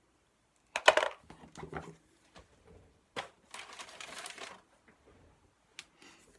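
Paper being handled on a craft desk: two loud stretches of crinkling and rustling, about a second in and again around the middle, each starting with a sharp click, with small knocks between.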